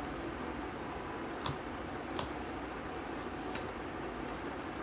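Plastic and bubble wrap around a can being cut open with a small knife: low rustling with a few sharp crackles.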